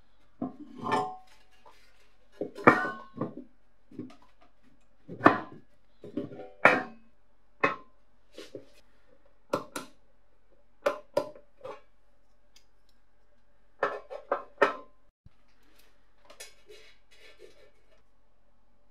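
Sheet-metal heater base being handled and set down on a workbench: about a dozen irregular knocks and clanks, some with a short metallic ring, fainter in the last few seconds.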